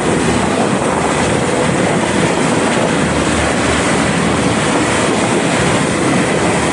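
Steady noise of a motorboat under way: its engine running and water rushing past the hull, loud and even throughout.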